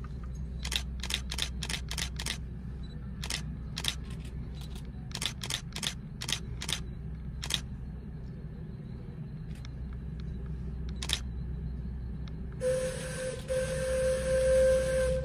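Camera shutters clicking, many single shots and quick runs of shots, through the first half. Near the end a steam whistle on the Shay geared steam locomotive blows one long hissing note for about two and a half seconds, over a steady low rumble.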